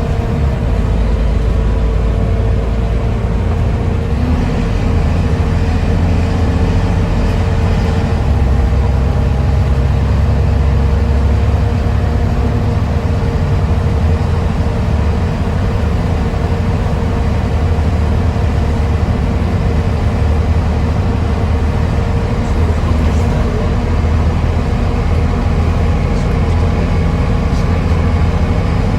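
Volvo B7TL double-decker bus's 7-litre six-cylinder diesel pulling steadily under load, with a steady whine over the low engine drone. Kickdown comes about three seconds in.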